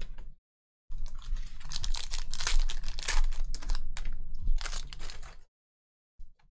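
Crinkling and crackling of a foil trading-card pack and the cards being handled close to the microphone, a dense run of small clicks and rustles that cuts off suddenly about five and a half seconds in.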